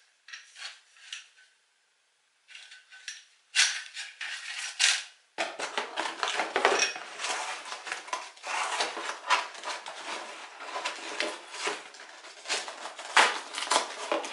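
Parts of a Cobra CT-1023 metal detector (shaft tubes and plastic armrest) clattering and knocking against each other and the cardboard box as they are handled and unpacked. A few separate clicks and rattles at first, then continuous rattling and rustling from about five seconds in.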